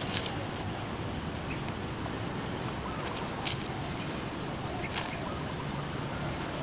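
Steady outdoor background hiss with a thin, constant high insect-like whine. A few brief scuffs come from a martial artist's shoes and clothing as he shifts through Tan Tui stances on concrete, one near the start and two more around the middle.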